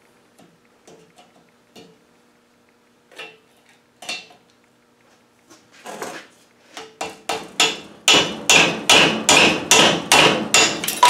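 Hammer blows on a seal puller driving the old leather pinion oil seal out of a Land Rover Defender's Salisbury axle. A few faint taps and scrapes come first. About six seconds in, a quick run of metal strikes begins, about three a second, and grows louder.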